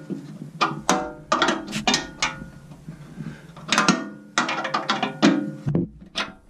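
Irregular metallic clinks and knocks, two or three a second, each ringing briefly: metal parts being handled against the steel housing and inlet chute of a wood chipper during reassembly.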